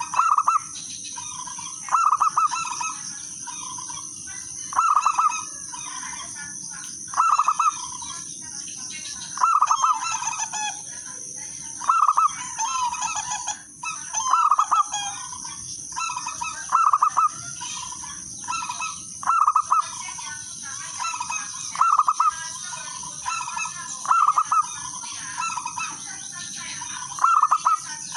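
Zebra dove (local perkutut) cooing: a short, rapid coo phrase repeated about every two and a half seconds, eleven or so times, over a steady high-pitched hiss.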